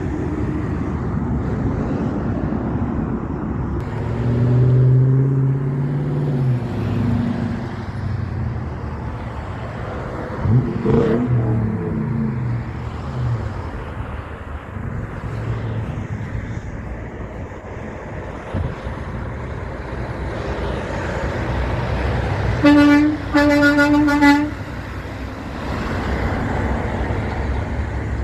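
Road traffic with heavy trucks passing, one with a falling pitch as it goes by. Near the end, a truck's air horn sounds in two short blasts, the second a little longer.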